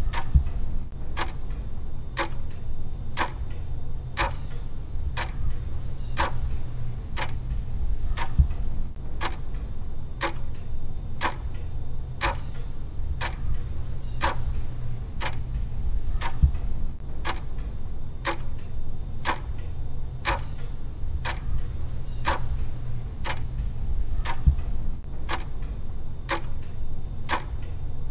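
Clock ticking in an even tick-tock, about two ticks a second, over a steady low hum.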